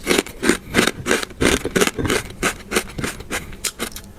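Crispy fried pork skin being chewed close to the microphone: loud, crackling crunches, about three a second.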